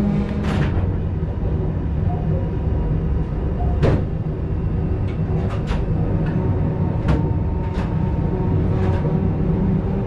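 Vintage electric train running, heard from inside the driver's cab: a steady low rumble with occasional sharp clicks and knocks.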